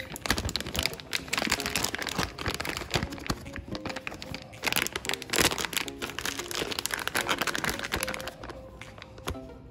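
Plastic retail bag of a Zev magazine base pad crinkling as gloved hands handle it, in a dense, irregular crackle. Quiet background music with held notes plays underneath.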